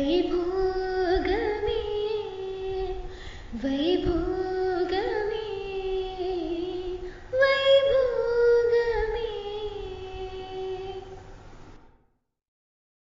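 A woman singing the closing phrases of a Carnatic devotional wedding song: long held notes that glide and waver, in three phrases. The singing fades and stops about twelve seconds in.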